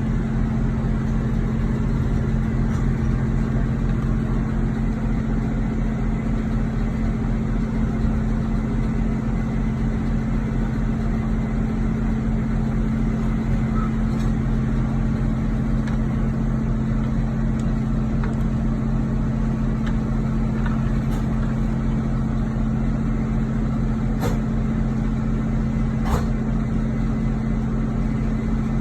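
Steady low engine hum, as of a vehicle idling, with two faint clicks near the end.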